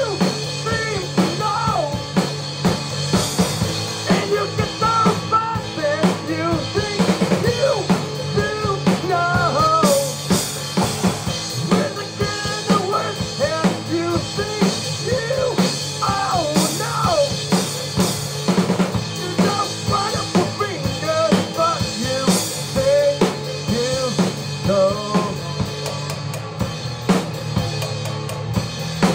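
Rock band music with a drum kit keeping a steady beat on bass drum and snare, under a lead line that bends up and down in pitch.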